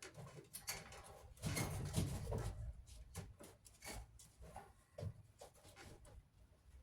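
Irregular small clicks, knocks and rustles of hands and tools working on a clothes dryer's parts during disassembly, busiest about a second and a half in.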